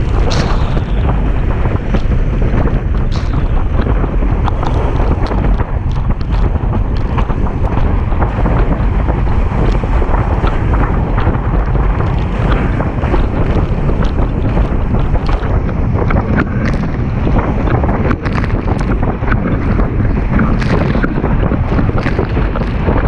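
Heavy wind buffeting the camera microphone over the rush of water under a Starboard Isonic slalom windsurf board planing at speed across chop, with frequent short splashes and slaps of spray throughout.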